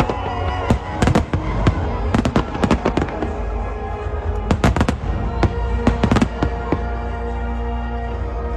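Fireworks bursting overhead in rapid, irregular clusters of sharp bangs and crackles, over music playing.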